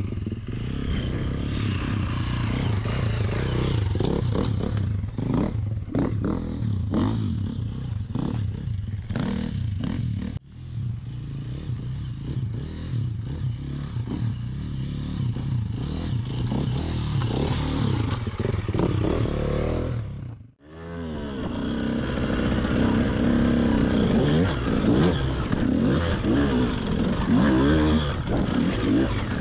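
Enduro dirt bike engines running, with some knocks and clatter; the sound breaks off abruptly twice. In the last third a KTM dirt bike up close revs up and down, its pitch rising and falling.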